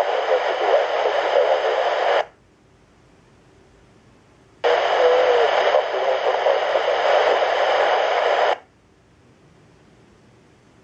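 Handheld airband scanner's squelch opening twice on the airport frequency: a loud rush of radio static that cuts off abruptly about two seconds in, then a second burst of about four seconds that also cuts off sharply.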